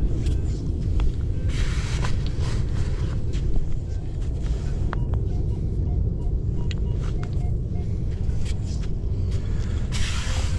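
Metal detecting in sand over a steady low rumble on the microphone: two bursts of sand being dug and scooped, about two seconds in and near the end, with scattered clicks and a few faint short metal-detector beeps.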